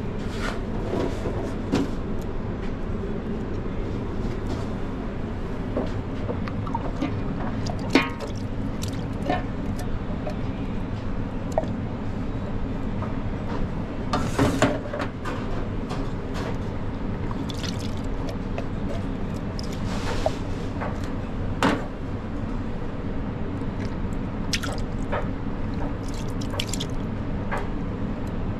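Thick coconut cream scraped out of metal tins with a spatula and dropped into a steel mixing bowl of flour: soft wet plops and squishes with scattered clicks and scrapes of spatula on tin and bowl. A steady low hum runs underneath.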